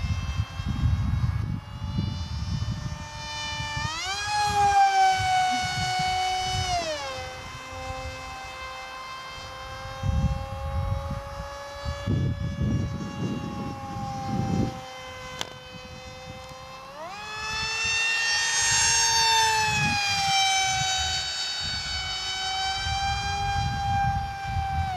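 Multiplex FunJet model jet's electric motor and pusher propeller whining in flight. The whine climbs sharply in pitch about four seconds in and falls back a few seconds later, then climbs again past the halfway point and slowly sinks toward the end.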